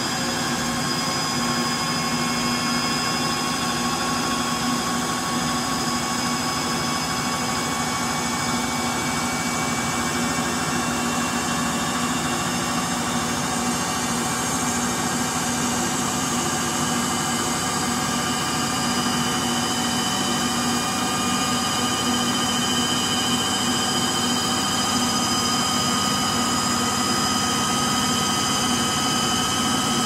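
Frigidaire Gallery front-load washer (GLTF1670AS1) in its final spin: a steady, jet-like whine over a rushing hum, with several high tones that creep slowly upward as it gets a little louder toward the end. The owner puts the whine down to bad motor bearings.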